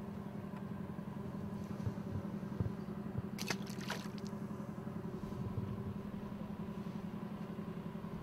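A steady engine hum, with a short splash in the water about three and a half seconds in.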